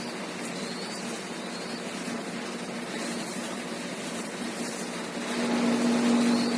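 Steady motor-like drone that grows louder about five seconds in, with a few faint, short, high rising squeaks now and then.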